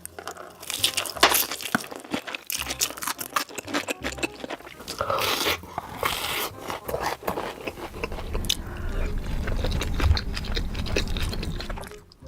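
Close-miked eating: repeated crunchy bites and wet chewing in quick, irregular succession, with a heavier low rumble in the last few seconds.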